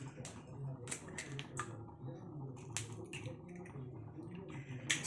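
Eggs being tapped and cracked against a bowl, a series of sharp, irregular clicks and taps of shell on the rim, over a steady low hum.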